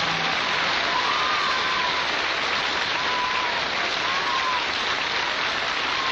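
Audience applauding steadily, with the song's last held note dying away at the very start.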